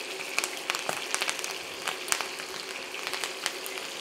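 Pigeon breasts frying in hot butter and rapeseed oil with crushed garlic and fresh thyme: a steady sizzle with frequent crackles and pops of spitting fat.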